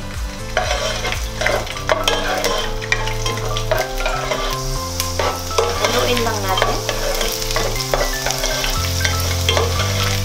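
Crushed garlic cloves sizzling in hot cooking oil in a nonstick pot, stirred with a utensil that clicks and scrapes against the pan. The sizzle picks up about half a second in and keeps going.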